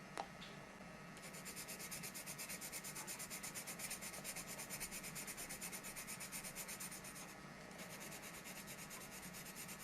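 Faint, even scratching or rasping strokes at about six a second. They begin about a second in, pause briefly near the seventh second and resume, with a single short click at the very start.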